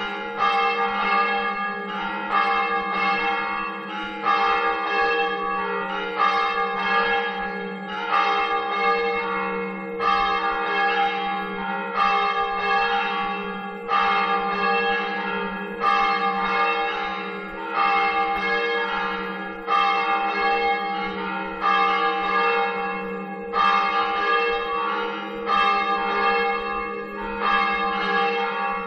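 Church bells in a village church tower ringing the call to Mass, struck about once a second. Each stroke rings on into the next over a steady low hum.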